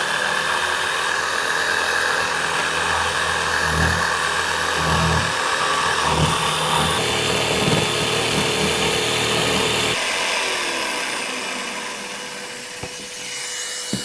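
DeWalt DW331 jigsaw running and cutting, a steady motor whine with a heavier rumble of the blade through the work in the middle. About ten seconds in the saw is switched off and its whine falls away, while the dust extractor hooked to it keeps running with a quieter steady hum.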